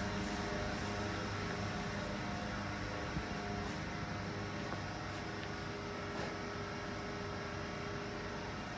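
A steady mechanical hum made of several pitched tones over a light hiss, with a few faint ticks.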